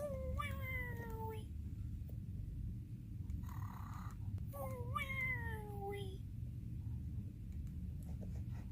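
Cartoon snoring: twice, a drawn-out exhale on a pitched tone that falls as it goes, about four and a half seconds apart, with a short rasping in-breath between them. A steady low hum runs underneath.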